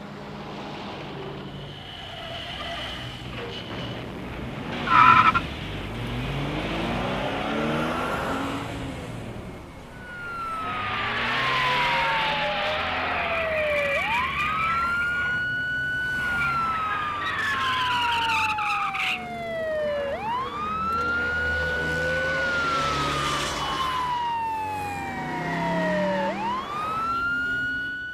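Police car siren wailing from about ten seconds in, each cycle rising quickly, holding, then falling slowly, repeating about every six seconds. Before it, cartoon car engines driving past and a short loud blast about five seconds in.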